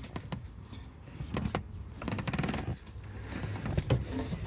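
Irregular clicks and light scraping of parts being handled and pressed into place by hand in an engine bay, over a low steady hum; the engine is not running.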